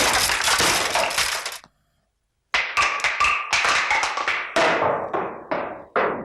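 Crashing and smashing, with glass breaking. A dense crash cuts off after a second and a half, and after a short dead gap comes a quick run of separate sharp smashes, each ringing out briefly, spacing out toward the end.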